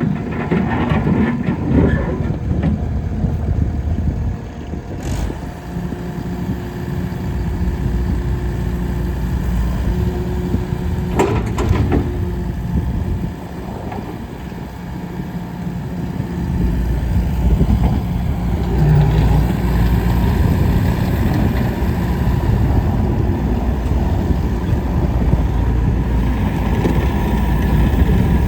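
Mustang MTL25 skid steer loader's diesel engine running steadily, picking up and running louder from about sixteen seconds in. A few sharp clicks are heard, one about five seconds in and a couple near the middle.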